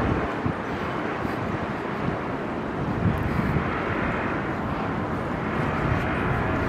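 Steady rumble of city traffic, an even wash of sound with no single event standing out.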